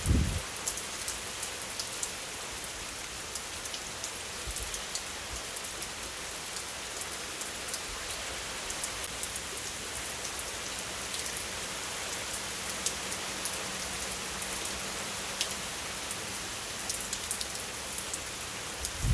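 Steady rain: a dense, even hiss with many fine drop ticks.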